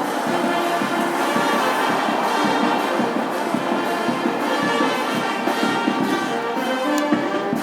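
Brass band playing, many horns sounding together in a steady, dense stretch of music.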